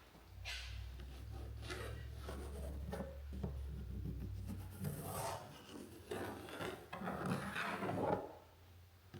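Lead pencil tracing around a template on a walnut blank, a run of scratching strokes as the line is gone over again to make a heavy mark.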